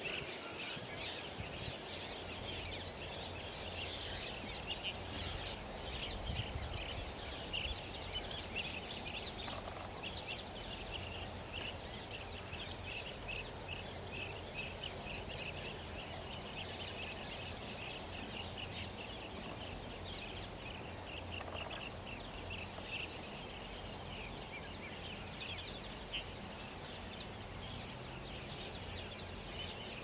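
Evening nature ambience: insects keep up a continuous high-pitched trill while small birds chirp softly and often in the background.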